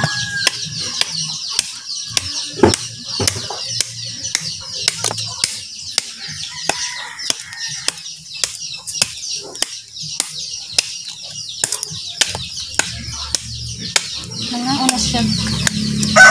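Bolo knife chopping into a banana stalk in quick, even strokes, about two a second. Chickens cluck in the background.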